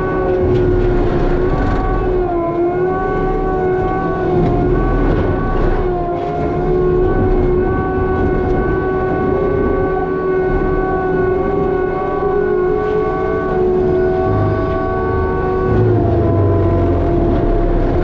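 Hydraulic mulcher head on an ASV compact track loader running at full speed: a steady high whine from the spinning drum over the loader's engine, the pitch sagging briefly under load about two and a half seconds in and again near the end.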